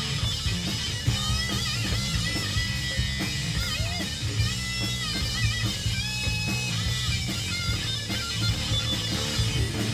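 Live rock band playing: electric guitar, bass guitar and drums together, with held, wavering guitar notes that bend in pitch over a heavy low end.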